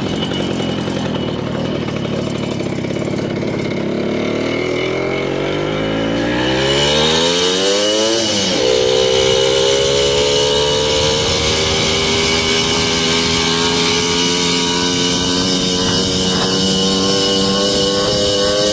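Small Jawa moped's two-stroke engine under way through its dented exhaust: it revs up steeply for a few seconds, the pitch drops sharply about eight seconds in, then it pulls steadily with the pitch slowly climbing.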